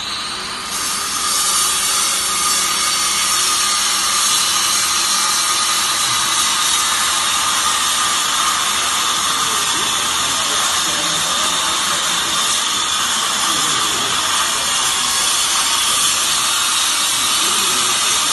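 Vertical baler machine running: a steady mechanical hiss with a faint high whine, growing louder about a second in.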